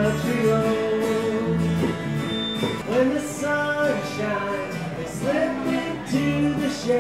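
Live acoustic band playing a country-pop song: two acoustic guitars strummed over an electric bass, with a few sung notes.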